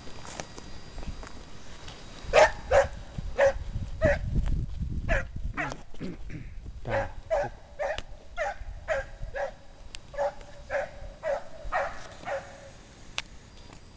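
Scent hound baying on a hare's trail: about eighteen short barks, roughly two a second, starting about two seconds in with a brief pause midway.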